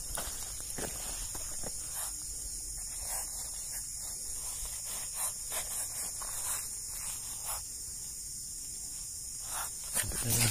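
Steady high-pitched chorus of insects, with scattered soft scuffs and taps and a couple of louder knocks near the end.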